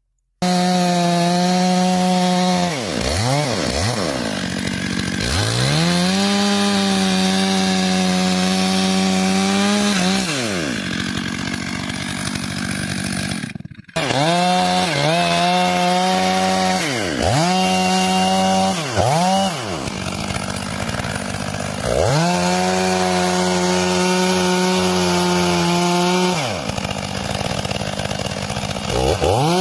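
Chainsaw running at full throttle through wood. Its pitch falls and climbs back many times as the throttle is let off and squeezed again. The sound cuts out briefly about fourteen seconds in.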